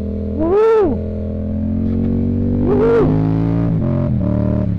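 Yamaha MT-07 parallel-twin engine with a Mivv aftermarket exhaust running steadily, blipped twice with quick throttle revs that rise and fall, about half a second in and again about three seconds in. The first blip is the louder.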